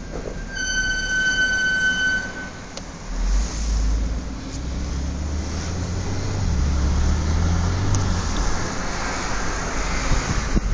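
Brakes of a new Audi S4 B8 Avant squealing: one high, steady squeal of about two seconds shortly after the start, then the low rumble of the car rolling. The owner says the squeal has been there since the car was new, with no fix from Audi.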